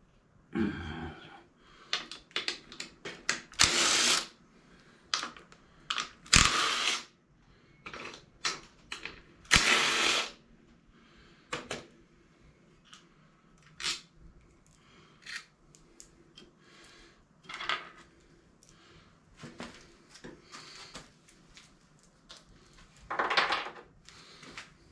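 Hand tools and loose metal parts clicking and clanking as a lawn mower is taken apart, with four louder, brief noisy bursts of about half a second to a second.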